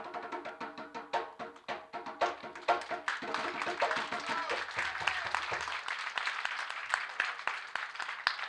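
An audience clapping: dense, irregular hand claps that start suddenly and keep going, with a faint steady tone under them during the first few seconds.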